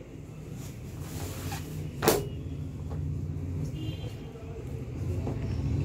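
Denim jeans being handled and folded on a wooden counter, with one sharp knock on the counter about two seconds in, over a steady low rumble.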